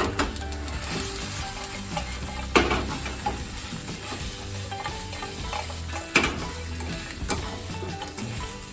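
Food stir-frying and sizzling in a hot pan, with a cooking utensil knocking sharply against the pan twice.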